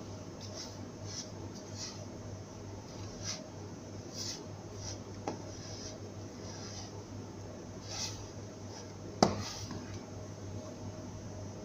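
Hands mixing and squeezing crumbly pastillas mixture in a plastic basin: soft, irregular rubbing and scraping, with a sharp knock against the basin about nine seconds in.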